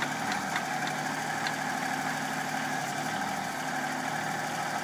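Backhoe engine running steadily, with a few faint clicks in the first second or so.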